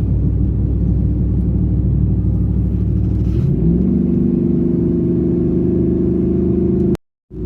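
Vehicle engine running while driving, heard from on board; its note rises about halfway through and then holds steady. The sound drops out completely for a moment near the end.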